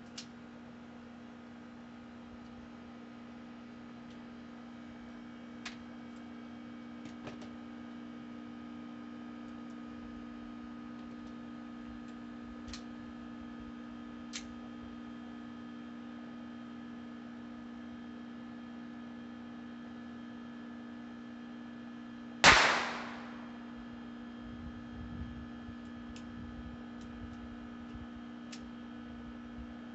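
A single pistol shot from a Ruger LCP II .22 LR about two-thirds of the way in, sharp, with a brief ringing tail. Faint light clicks come before and after it, over a steady low hum.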